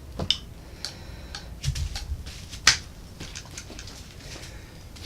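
Irregular small clicks and light knocks of a rifle scope being handled and set down, with a soft thump a little before two seconds in and a sharper click a little after two and a half seconds.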